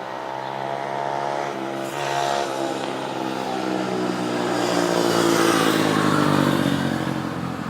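A motor vehicle driving past with its engine running, growing louder to a peak about six seconds in and then fading, its pitch dropping a little as it goes by.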